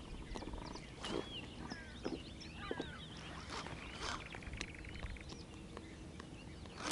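Faint birdsong: short chirps and whistled notes that rise and fall, thickest in the first half, over scattered soft clicks and knocks.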